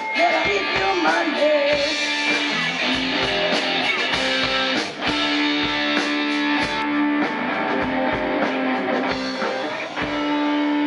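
Young amateur rock band playing live: electric guitar chords held over bass and a steady kick drum, with cymbals.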